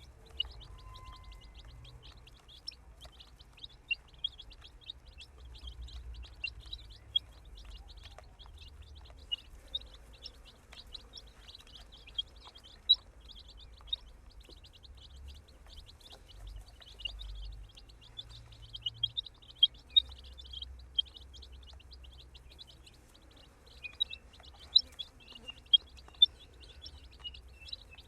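A group of baby chicks peeping without pause: many short, high-pitched chirps overlapping, with a few louder peeps standing out now and then.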